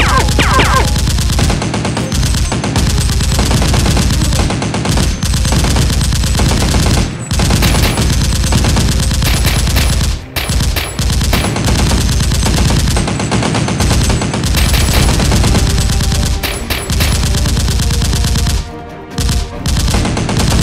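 Dubbed-in machine-gun sound effects firing in long, rapid bursts, with short breaks about ten seconds in and again near the end.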